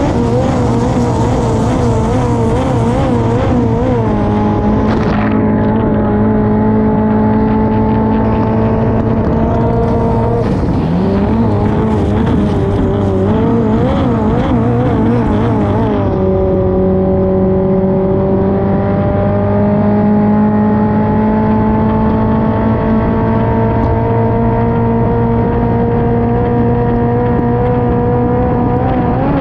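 Honda F20C inline-four engine of a classic hydroplane running hard at high revs, heard from on board over a rush of spray and wind. Its pitch wavers unsteadily for the first few seconds and again from about ten to sixteen seconds in, drops about halfway through, then climbs steadily as the boat gathers speed.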